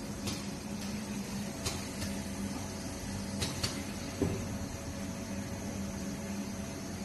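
Selective wave soldering machine running: a steady mechanical hum with a few sharp clicks, and a heavier knock about four seconds in.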